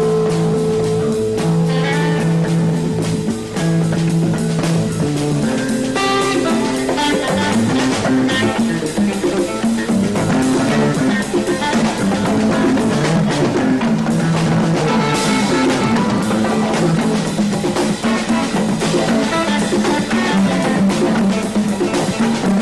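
Rock jam: electric guitar lines over a moving bass line and a drum kit keeping a steady beat.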